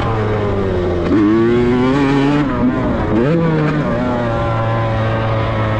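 Two-stroke Kawasaki Ninja grasstrack motorcycle engine being revved: a quick rise in revs about a second in, another just after three seconds, then held at a steady speed.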